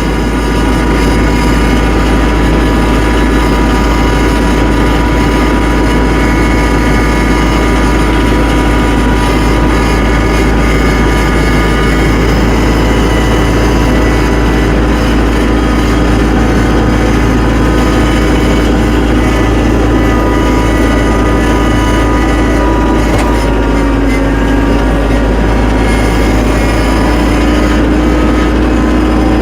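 Tractor engine running steadily as the tractor drives through snow, its note dipping slightly about three-quarters of the way through, then recovering.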